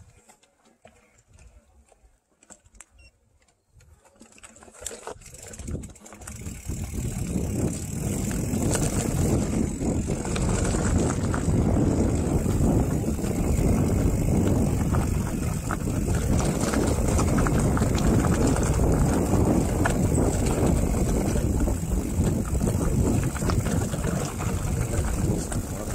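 Mountain bike descending a dirt singletrack: a few faint clicks, then from about four seconds in a rising rush of wind over the microphone and tyres rattling on the trail. It settles into a loud, steady rush as the bike picks up speed.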